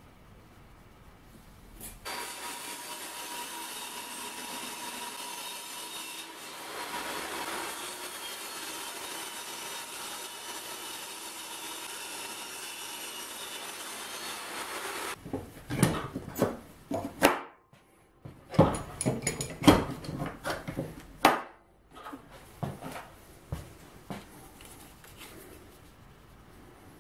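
A benchtop table saw running steadily as it rips a plywood sheet along the fence, starting about two seconds in and lasting some thirteen seconds. After it come several seconds of loud, irregular knocks and scrapes.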